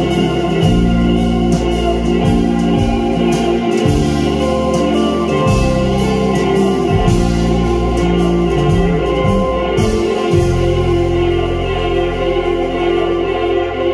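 Live band playing an instrumental passage: electric guitars, bass, keyboard and drums with cymbal strokes. About two-thirds of the way through the cymbals stop and the band holds a sustained chord.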